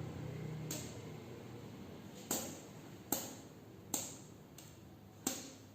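Stretched rubber band plucked about five times, each pluck a short, faint snap that fades quickly; the band vibrates when pulled from its rest position.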